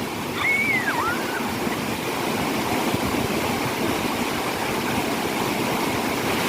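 Waterfall water rushing steadily. About half a second in, a short high whistle rises and falls twice and then stops.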